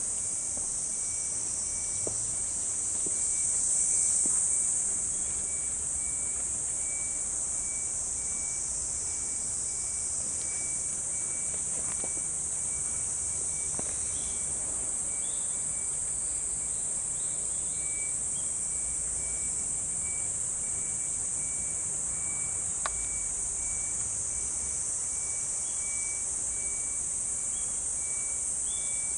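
Steady high-pitched chorus of insects shrilling in the trees, swelling briefly about four seconds in, with a fainter insect or bird pulsing regularly underneath and a few short chirps.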